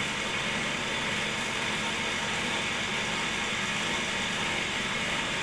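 Cotton candy machine's DC motor running steadily, spinning its heated spinner head as it throws out sugar floss.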